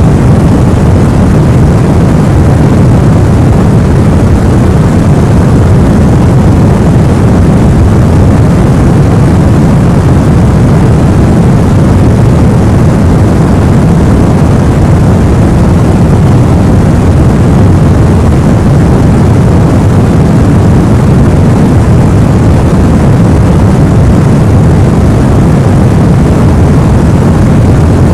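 Steady sleep noise for babies, a deep even rumbling hiss heaviest in the lows, with no changes.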